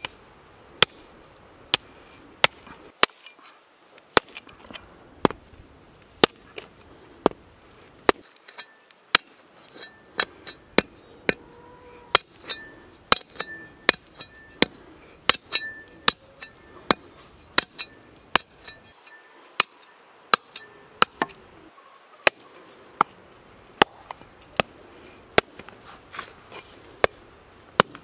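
Hatchet chopping through a lamb rib rack into a wooden chopping stump: a steady run of sharp chops, one or two a second, as the blade cuts through the rib bones.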